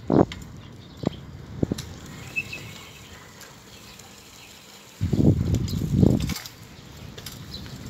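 Wind buffeting a phone's microphone while riding a bicycle: a short gust at the start and a longer one about five seconds in, with a few light clicks between.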